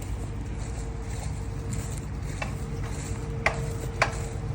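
A machine running steadily: a low rumble with a constant whine, and a few sharp clicks in the second half.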